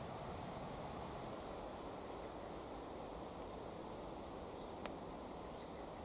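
Steady outdoor background noise, low and even, with a few faint short high chirps and a single sharp click nearly five seconds in.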